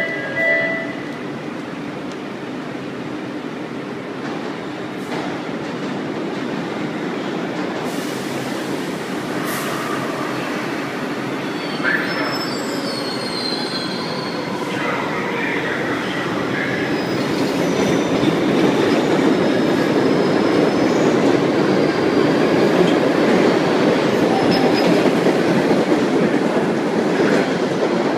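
MBTA Red Line subway train of older aluminium-bodied 1600-series cars pulling out of an underground station, its running noise growing steadily louder as it picks up speed, with high wheel squeals on the rails partway through. A brief tone sounds right at the start.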